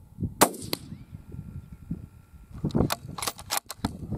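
A single rifle shot from a Savage varmint rifle about half a second in, with a short ringing tail; about three seconds in comes a quick run of sharp clicks.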